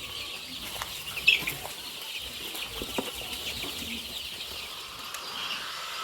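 A flock of young chickens peeping and chirping without pause, many small calls overlapping, with one louder chirp about a second in.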